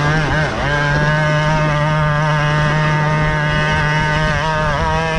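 Sur-Ron 7 kW electric dirt bike's motor and drivetrain whining at a steady speed, the pitch dipping and rising briefly about half a second in and again near the end.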